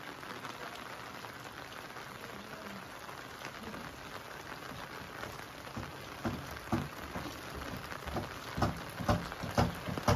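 Steady rain falling. From about six seconds in, a run of irregular sharp taps grows louder and more frequent.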